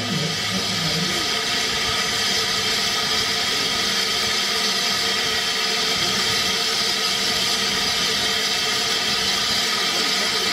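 A steam locomotive letting off a steady, even hiss of steam.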